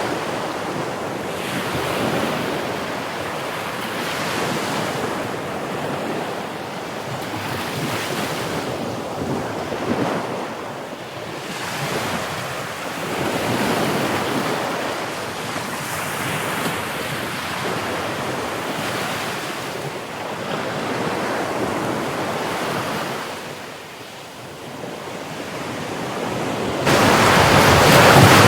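Sea surf washing in, swelling and easing every few seconds, with wind on the microphone. It turns abruptly louder near the end.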